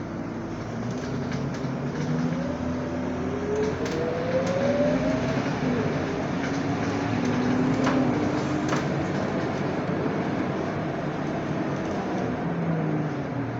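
Scania K230UB bus heard from inside the cabin as it pulls away and accelerates: engine and drivetrain note building, with a whine rising in pitch over a few seconds and several short rattles and knocks.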